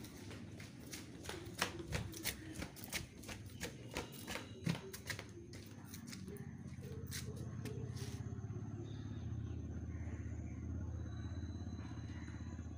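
Footsteps on a tiled floor: light, irregular clicks and slaps, two or three a second, for about the first eight seconds. Then a motorcycle engine's steady low hum.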